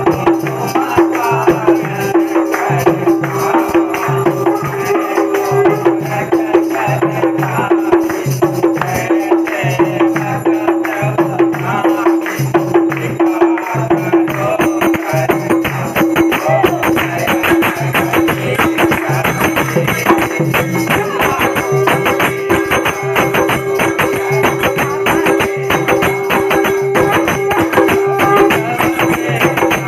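Group singing of an aarati hymn to a madal barrel hand drum beating a steady, repeating rhythm, with hand clapping and jingling percussion throughout. A single steady droning tone holds under the voices.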